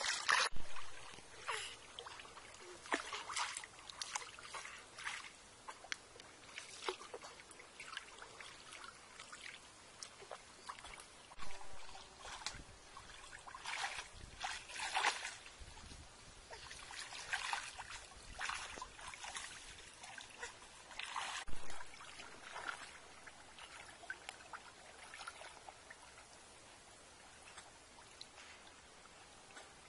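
Muddy pond water splashing and sloshing in irregular bursts as two people wade through it dragging a mosquito net.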